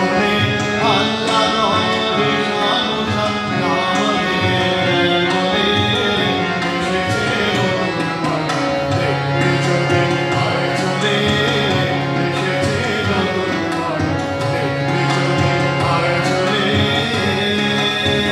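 Devotional bhajan music: a harmonium plays held, reedy chords and melody over steady tabla strokes, with no words sung for most of the passage.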